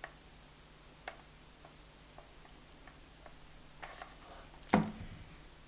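Faint scattered clicks of a hot glue gun being worked against a plastic fuse-bead piece. A single louder knock comes a little before the end as the glue gun is put down on the wooden tabletop.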